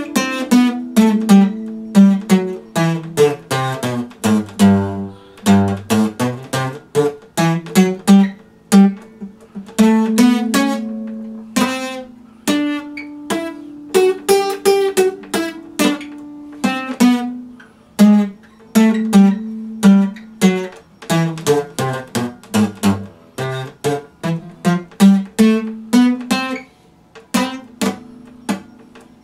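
Epiphone steel-string acoustic guitar played solo, single notes and bass notes plucked in a quick, flowing pattern, with some notes left to ring. The playing thins out and fades near the end.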